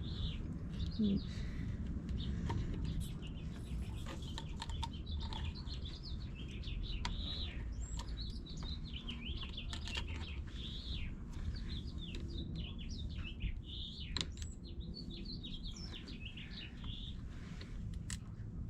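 Small birds chirping and twittering continuously over a steady low rumble, with a few sharp clicks now and then.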